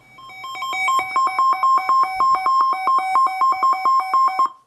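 A Sangean weather radio's electronic alert alarm, beeping back and forth between two pitches for about four and a half seconds and then cutting off suddenly. It is the sign that the radio has decoded a SAME alert tone, here a severe thunderstorm warning.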